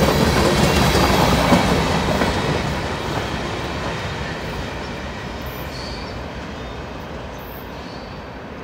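Tail end of a CSX mixed freight train rolling past on the rails, the last car a covered steel coil car; the sound of its wheels on the track fades steadily as it moves away.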